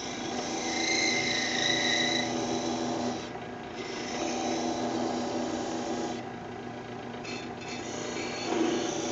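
A hacksaw blade held against a MEC crimp die that is spinning in a drill press, rasping as it cuts into the metal, with a brief squeal about a second in. The scraping lets up briefly twice as the saw eases off, over the steady hum of the drill press.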